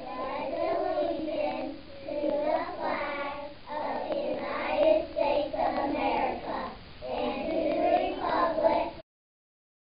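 A class of young children reciting the Pledge of Allegiance together in unison. The sound cuts off suddenly about nine seconds in.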